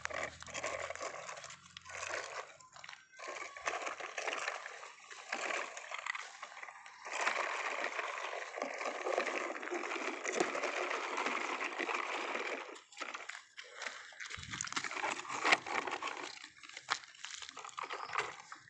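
Uneven crunching and rustling on gravel and dry dirt clods, with scattered clicks and knocks, steadiest in the middle stretch.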